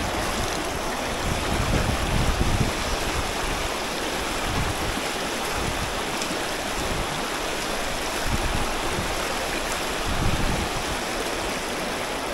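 River rapids: white water rushing over rocks in a steady, even hiss. Low buffeting on the microphone swells about two seconds in and again around eight and ten seconds.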